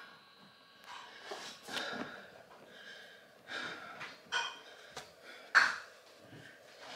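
A woman breathing hard, out of breath right after a 30-minute run, in a string of separate breaths, with one louder breath late on.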